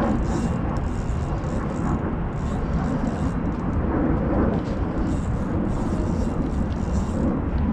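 Wind buffeting the microphone outdoors: a steady, loud low rumble.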